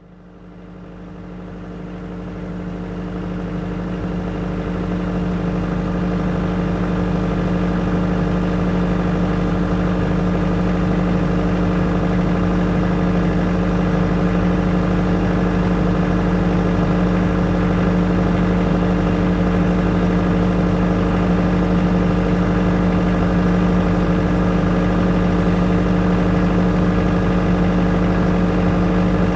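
Engine-driven generator for a neputa festival float, running steadily at constant speed with an even engine hum. The sound fades in over the first several seconds.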